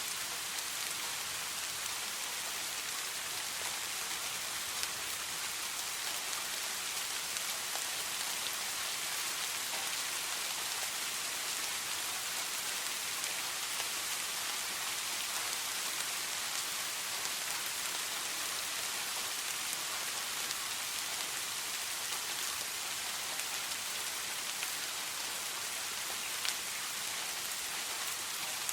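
Gentle rain falling steadily, an even hiss with occasional faint drop ticks.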